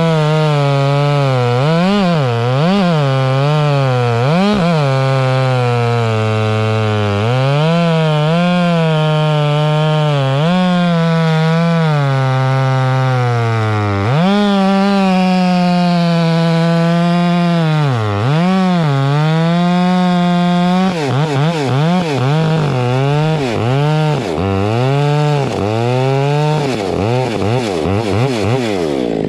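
Two-stroke Stihl chainsaw cutting through an oak log at full throttle. The engine pitch drops and recovers again and again as the chain bites and bogs in the cut, and it sags low twice. In the last eight seconds the throttle is blipped quickly, about two times a second.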